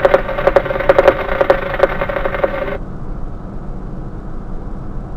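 Idling engine with a steady hum and irregular clatter, which cuts off suddenly about three seconds in, leaving a low rumble.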